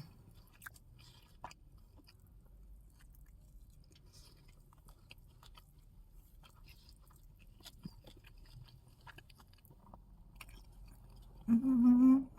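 Close-up chewing of a bacon cheeseburger: faint, scattered wet mouth clicks and smacks. Near the end a short hummed voice sound, held on one pitch for under a second.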